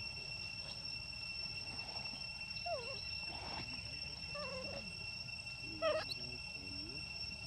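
Young macaque monkeys giving a few short squeaky calls that bend up and down in pitch, the loudest about six seconds in, over a steady high-pitched insect drone.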